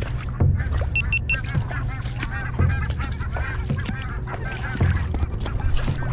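A flock of geese flying over and honking, many short calls overlapping, over a low rumble with occasional thumps. Three short high electronic beeps sound about a second in.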